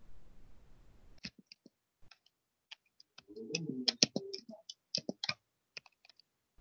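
Computer keyboard keys clicking as someone types, an irregular run of key presses starting about a second in.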